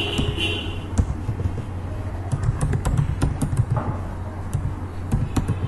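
Computer keyboard being typed on: a run of quick key clicks, thickest in the middle, over a steady low hum.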